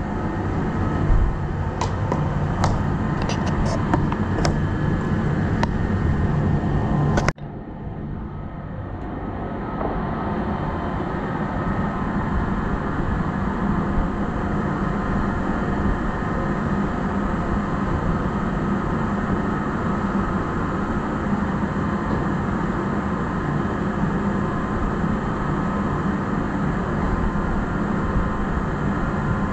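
Steady engine drone heard inside a totally enclosed lifeboat, with a few sharp clicks and knocks in the first five seconds. About seven seconds in the sound breaks off abruptly, then builds back to the same steady drone.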